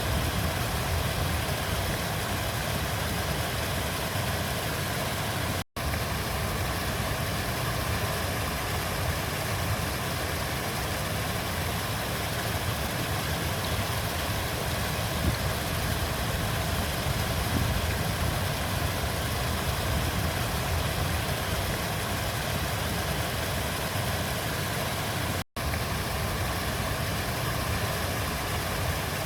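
River water flowing in a steady, even rush with a low rumble. The sound cuts out for an instant twice, about 20 seconds apart.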